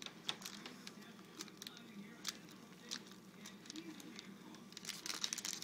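Faint crinkling and crackling of a foil trading-card pack being worked at by hand to tear it open, in scattered small clicks.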